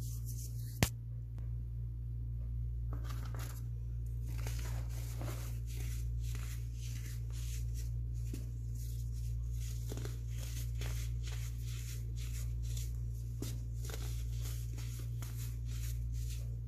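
Fingers crushing and crumbling powdery sky-blue baking soda chunks in a tub, giving a quick run of soft crunches and crackles, with one sharp click about a second in, over a steady low hum.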